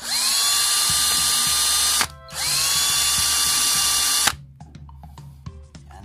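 Hand-held electric drill boring a hole through a motorcycle's plastic body panel, run in two bursts of about two seconds each with a short pause between. Each burst opens with a rising whine as the motor spins up, and the drill stops about four seconds in.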